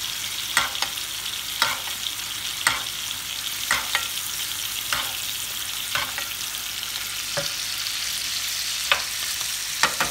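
Pork chops sizzling in melted butter and pan juices in a frying pan, with a steady hiss, while a metal spoon bastes them, clicking against the pan roughly once a second.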